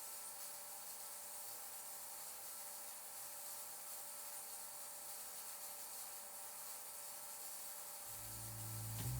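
Ultrasonic record-cleaning machine running through its cleaning cycle: a faint, steady high hiss. About eight seconds in, background music fades in.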